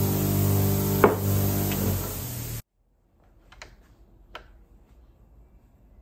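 Bench grinder's mains motor running with a steady hum while a wire wheel brushes a small aluminium casting, with one sharp scraping hit about a second in. It cuts off suddenly after two and a half seconds, leaving a quiet room with two light clicks.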